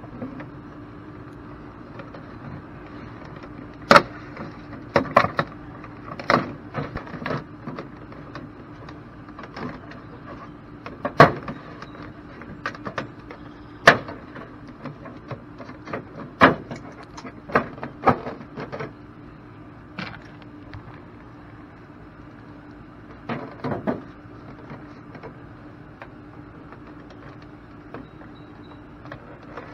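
Vinyl soffit panels being handled and pushed up into their channel: irregular sharp plastic clacks and snaps, most of them in the first two-thirds, over a steady low hum.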